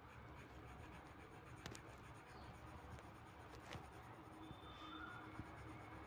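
Faint scratching of a coloured pencil shading on paper, with two small clicks.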